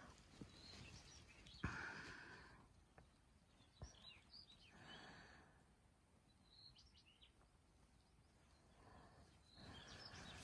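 Faint bird chirps in short clusters of a few calls over quiet outdoor ambience, with two soft knocks in the first half.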